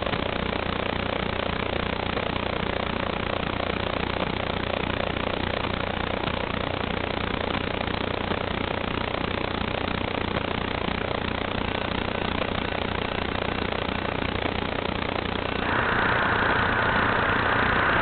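Steady hiss with a faint low hum; about three-quarters of the way through, a louder steady whine joins in: a small FPV quadcopter's brushless motors spinning at idle once it is armed.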